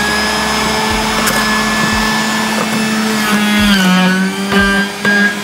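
Yalli Sun electric juicer's motor running at a steady hum just after spinning up. Its pitch dips briefly about four seconds in as ginger is pressed down the feed chute onto the blade, and a few sharp clicks follow near the end as the ginger is shredded.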